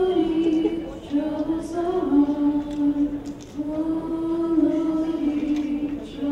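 Voices singing a slow melody in long held notes, moving to a new pitch about once a second.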